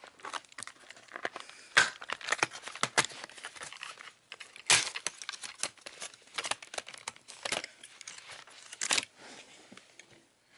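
Plastic bottom case of an ASUS Eee PC X101 netbook being pried and lifted off by hand: a run of irregular clicks, crackles and snaps from the plastic, with louder snaps about two, five and nine seconds in.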